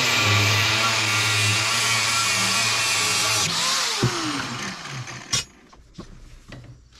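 Angle grinder cutting through a steel car coil spring, a loud steady grinding. About three and a half seconds in it is switched off and winds down in a falling whine, followed by a sharp metal knock and a few light clanks as the cut-off coils are handled.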